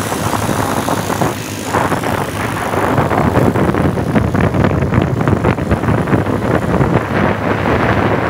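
Motorcycle engine running on the move, with wind rushing and buffeting across the microphone.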